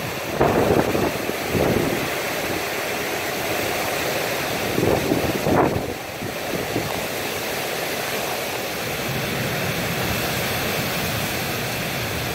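Storm wind and heavy rain rushing steadily, with gusts buffeting the microphone, strongest about half a second, a second and a half, and five and a half seconds in.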